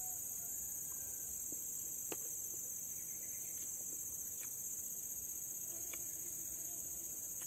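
Steady high-pitched chorus of insects, with a few faint isolated clicks.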